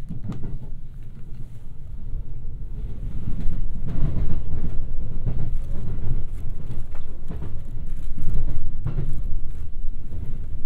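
Running noise of a JR West 521 series electric train heard from inside the carriage: a steady low rumble with sharp clacks as the wheels cross rail joints and points in the station yard. It gets louder about three seconds in.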